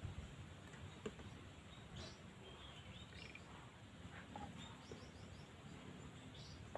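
Near silence with faint bird chirps in the background: short high chirps here and there, with a quick run of about four in the middle, over a low steady background hum.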